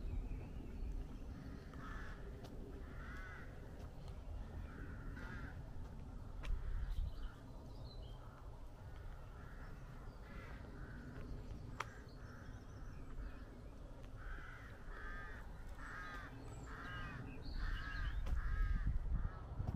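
Crows cawing repeatedly in runs of several quick caws, the longest run in the last few seconds, over a low rumble of wind or handling.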